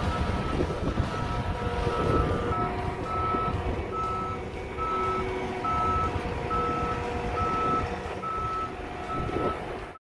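Cat compact track loader's engine running while its backup alarm beeps steadily, a bit more than once a second, the sign that the machine is reversing.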